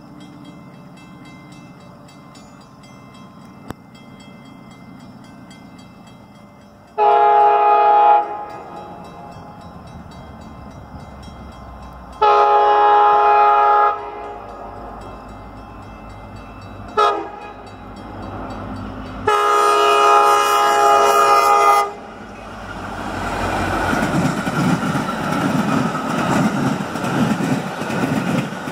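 Metra commuter train's air horn sounding the grade-crossing signal, long, long, short, long, as it approaches the crossing, over the faint steady ringing of the crossing bells. After the last blast the train passes close by, and the rumble of its wheels on the rails rises loud near the end.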